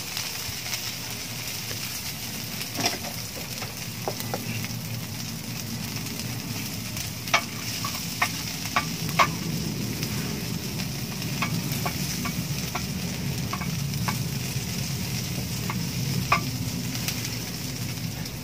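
Ginger, garlic and white onion sizzling steadily in hot oil in a metal frying pan, with a wooden spatula clicking and scraping against the pan now and then.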